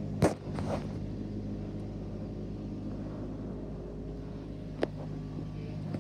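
Handling noise from a phone being moved by hand close to a coin on a cloth: a loud knock just after the start, a brief scuff after it, and a sharp tap about five seconds in. A steady low hum runs underneath.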